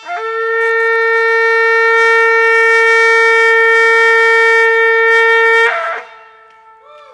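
A horn blown in one long, steady, loud blast of about five and a half seconds that cuts off abruptly.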